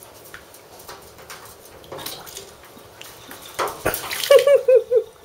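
A ferret splashing and paddling about in shallow bathwater in a bathtub, with light scattered splashes. Near the end there is a loud knock, then a quick run of four short pitched calls.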